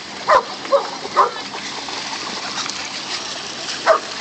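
A dog barking: three quick barks about a second in and one more near the end, over the steady wash of water at the shoreline.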